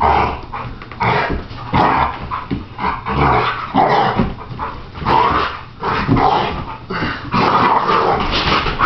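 American pit bull growling and snarling during rough play-wrestling, in repeated bursts about once a second, with thuds and scuffling from the tussle on the floor.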